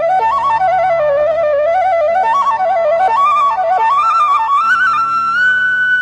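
Bansuri (Indian bamboo flute) playing a slow melody with quick ornamented turns between notes. Near the end it climbs to a long held high note, over a steady low drone.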